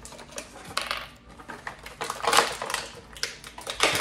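Stiff clear plastic blister tray crackling and crinkling, with small irregular clicks, as action-figure accessory hands are popped out of it.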